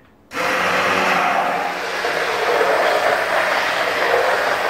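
Hand-held electric immersion blender switched on about a third of a second in and running steadily in a steel pot, puréeing soft-cooked mixed fruit.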